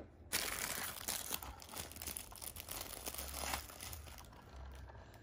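Crinkling and rustling of plastic packaging being handled, starting suddenly just after the start and thinning out over the next few seconds.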